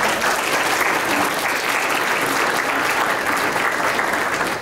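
Audience applauding: many hands clapping together in a large hall, steady, and beginning to die away near the end.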